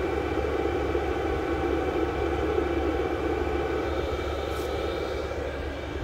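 VEVOR 8 kW all-in-one diesel air heater running steadily, its blower giving a constant sound like air blowing over a low hum.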